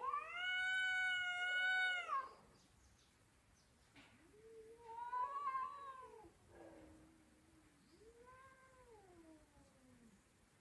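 Two domestic cats caterwauling in a standoff: a long, high yowl held for about two seconds at the start, then three lower, wavering yowls that rise and fall, with short pauses between them.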